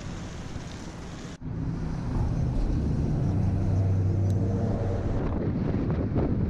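Wind buffeting the microphone as a steady low rumble, with a sudden break about a second and a half in, after which the rumble is louder.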